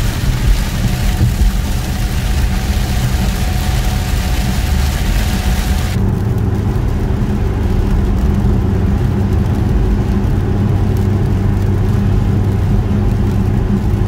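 A 2020 Dodge Challenger Scat Pack 1320 driving in rain, heard from inside the cabin: steady engine drone under a loud hiss of rain and road noise. About six seconds in, the hiss cuts off abruptly, leaving the steady low engine hum.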